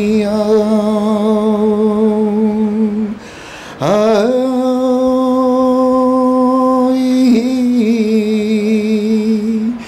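A man singing unaccompanied, holding long wordless notes with vibrato. About three seconds in he stops for a breath, then slides up into another long note that steps down partway through and holds almost to the end.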